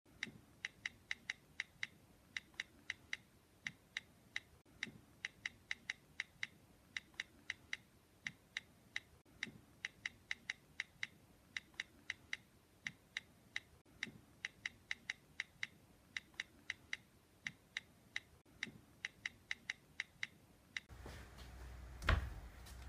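Smartphone on-screen keyboard clicks as a text message is typed: short, bright ticks, a few a second, in irregular runs with brief pauses. Near the end the clicks stop and a single thump is heard.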